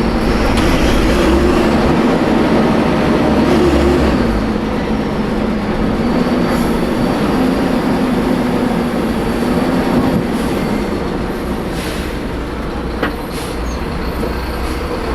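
Mercedes-Benz O500M bus diesel engine running under way, with the rasp of a holed, leaking exhaust. The engine note holds higher for about four seconds, then drops in pitch and eases off.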